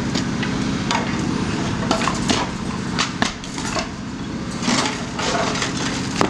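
Caterpillar 336E hydraulic excavator's diesel engine running steadily while its sorting grapple tears into a house's roof. Repeated sharp cracks and crunches of breaking roof timbers and masonry come over the engine.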